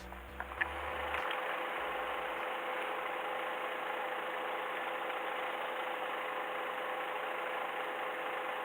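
Background music ends in the first second or two, giving way to a steady motor drone with a constant hum.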